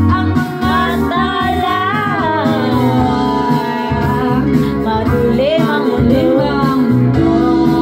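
A woman singing a slow pop ballad over instrumental backing, holding long wavering notes.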